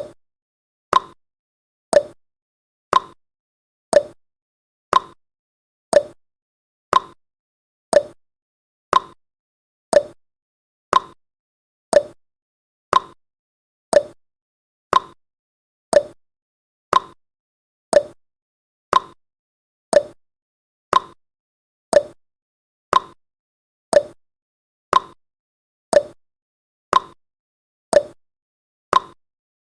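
Countdown timer tick sound effect: one short, sharp tick every second, evenly spaced and steady.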